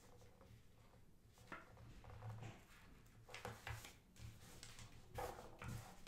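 Faint, scattered rustles and light taps of a paper stencil and cotton T-shirt fabric being handled and pinned with needles on a tabletop, over a low room hum.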